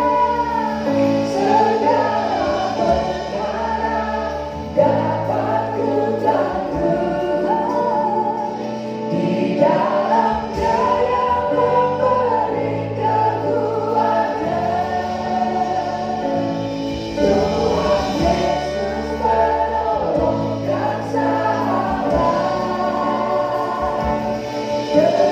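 A choir singing a Christian worship song with instrumental accompaniment: voices holding long notes over a steady bass line.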